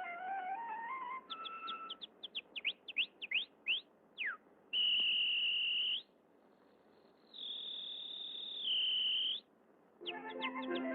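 A cartoon canary's song done as whistling: a quick run of short rising chirps, then two long held high whistle notes, the second dropping a step before it stops.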